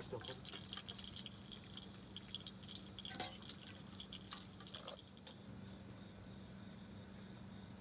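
Faint insect chirping: steady high trilling, with a few scattered sharp clicks in the first five seconds.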